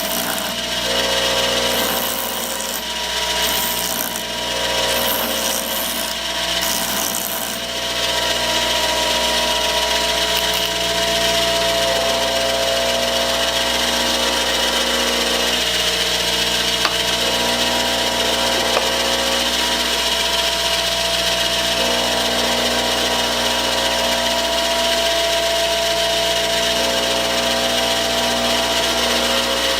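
Powered grindstone running steadily with a constant whine. In the first eight seconds a stainless steel screw is pressed against the stone in about five short bursts of hissing grinding, shortening the screw.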